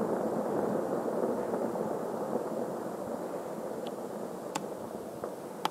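Powder avalanche pouring down a mountain face: a steady, dense rushing rumble that slowly fades, with a few short sharp ticks in the second half.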